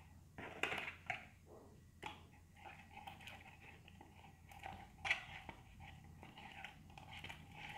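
Skewered tapioca dumplings being swirled in beaten egg in a plastic cup: faint, irregular wet squelches and small clicks of the bamboo skewers against the cup.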